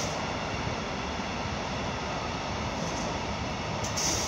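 Freight train of container wagons and boxcars rolling past, a steady rumble of wheels on rail. A brief high hiss swells up about four seconds in.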